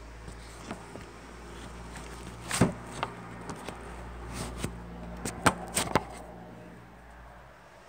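Handling noise of a phone being moved about: irregular knocks and rubbing on the microphone, loudest about two and a half seconds in, with a cluster of sharper knocks a couple of seconds later.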